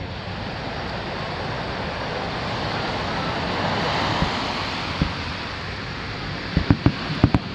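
Surf washing onto a sandy beach, swelling to a peak about halfway through. Then comes one sharp firework bang, followed near the end by a quick cluster of firework bangs.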